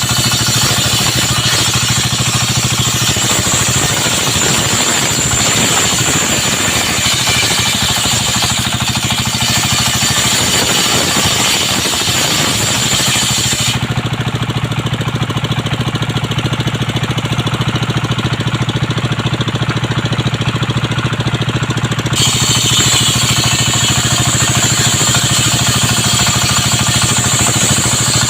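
Engine of a circular-saw sawmill rig running steadily. A high hiss in the upper range drops out for about eight seconds midway, then returns.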